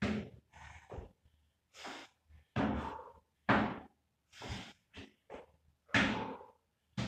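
Repeated thuds of feet landing on a plyo box and stepping back down onto the gym floor during box jumps, in an uneven run of separate knocks.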